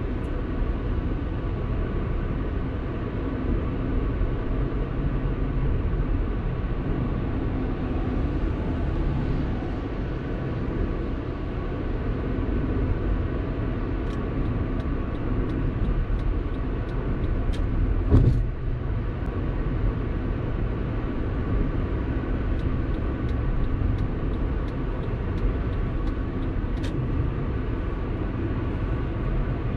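A car driving at steady speed: a continuous low rumble of road and engine noise. A single thump about eighteen seconds in, as from a bump in the road.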